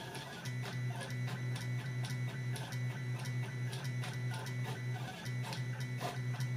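Stepper motors of a 3D printer converted into a pen plotter whirring as the pen carriage moves, with many short clicks as the pen is lifted and dropped onto the paper in little dots. Guitar-led background music plays along.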